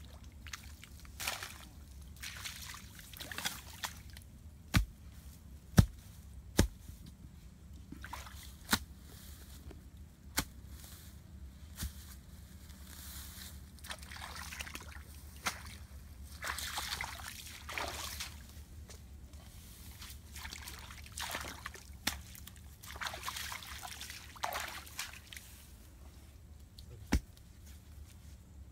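Wet feathers being plucked by hand from a bird's carcass: irregular wet rustling and squelching pulls, with several sharp clicks along the way.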